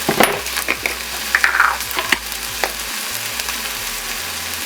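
Ground turkey, onions and green beans sizzling in a hot frying pan as they are stirred together, with scattered clicks and scrapes of a spatula against the pan.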